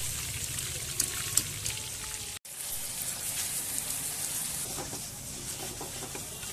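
Hot oil sizzling steadily as chicken fries in a wok, with a couple of sharp clicks about a second in. After a brief dropout about two and a half seconds in, the sizzling goes on as chicken is stir-fried in sauce.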